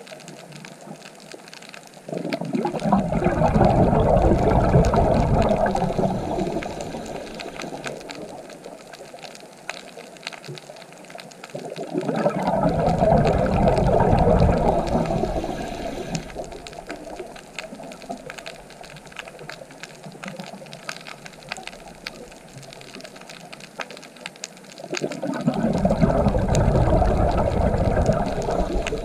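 Scuba diver breathing through a regulator underwater: three long gushing surges of exhaled bubbles, each lasting about four seconds, with a quieter hiss and faint crackling clicks between them.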